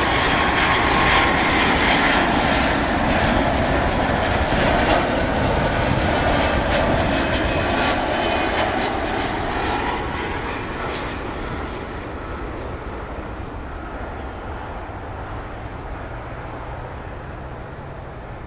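Boeing 757-200's Rolls-Royce RB211-535 turbofans on landing approach passing by, a loud jet rush with a whining tone that drops in pitch as the airliner goes past. It fades steadily through the second half as the plane moves away toward touchdown.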